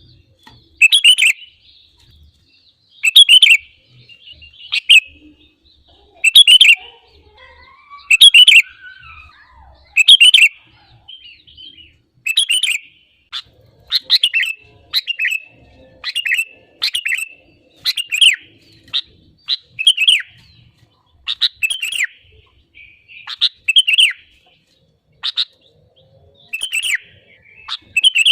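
Sooty-headed bulbul (kutilang) singing in full voice: short, loud song phrases repeated every second or two.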